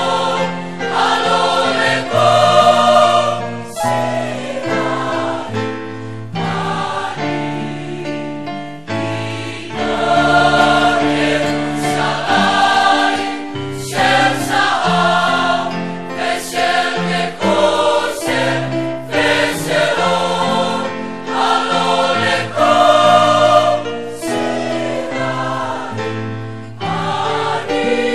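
Large mixed choir singing a hymn-like song in full harmony, in sustained phrases that break every few seconds.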